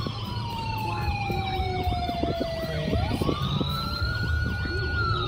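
Emergency siren sounding inside a moving car: a slow wail that holds high, falls over about three seconds and jumps back up, with a faster yelp cycling over it. Low road rumble from the car runs underneath.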